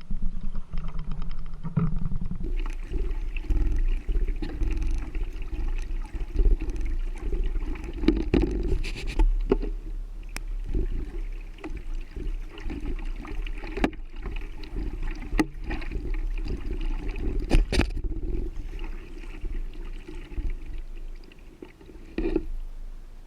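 Kayak paddling: paddle blades splashing and dripping water with each stroke, over a steady low rumble, with a few sharp knocks scattered through. It grows quieter near the end.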